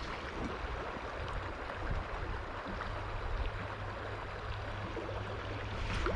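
Steady rush of a small river's flowing water, with a low rumble underneath.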